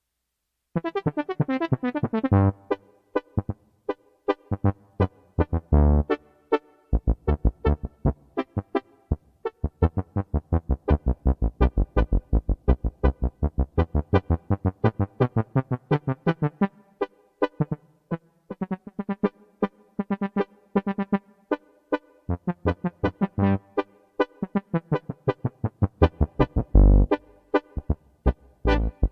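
Yamaha PSR-S670 arranger keyboard playing a Tierra Caliente tuba sample in a three-four rhythm, starting about a second in: quick runs of short notes over a strong, deep bass line.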